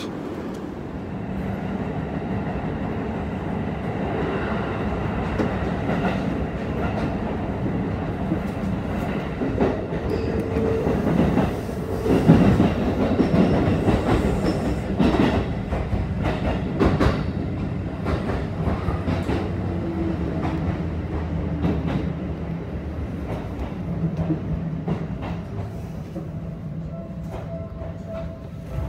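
Seibu Tamagawa Line electric commuter train running on the track, heard from on board: a steady rumble of wheels on rail with repeated clicks as they cross rail joints, over a low motor hum.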